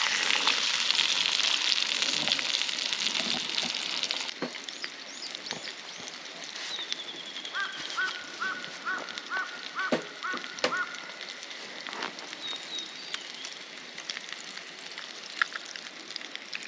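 A bird calling a run of about eight short repeated notes, roughly three a second, over a steady hiss that is louder for the first few seconds. A few sharp clicks around the calls.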